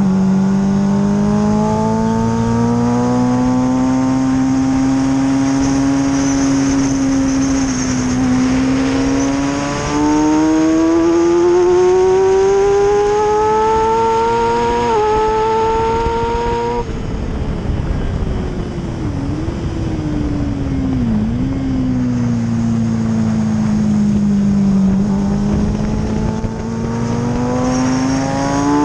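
Racing motorcycle engine heard onboard at speed: the revs climb steadily through the gears, ease off about two-thirds in with a couple of brief dips in pitch as it slows for a corner, then climb again near the end. Wind rushes over the microphone throughout.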